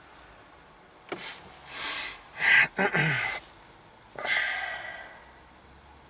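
A person's breath sounds close to the microphone: a few short, noisy sniffs and exhales, one a sigh whose pitch drops, bunched between about one and five seconds in.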